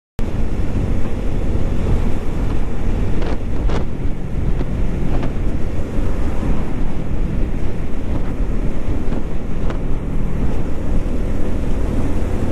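Wind buffeting the rider's camera microphone on a moving Yamaha Lagenda 115ZR underbone motorcycle, a loud steady rush over the bike's engine, cutting in suddenly. A few light knocks are heard in the middle.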